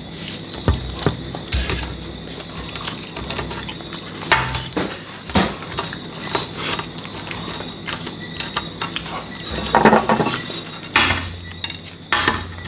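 Hard-boiled eggs being cracked and peeled by hand: irregular small crackles and clicks of eggshell, with shell fragments tapping on a plate and glass tabletop, and a few louder clicks about five, ten and eleven seconds in.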